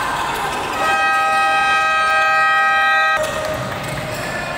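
Basketball scoreboard buzzer sounding one steady, loud tone for about two and a half seconds, starting about a second in and cutting off suddenly, over general gym noise.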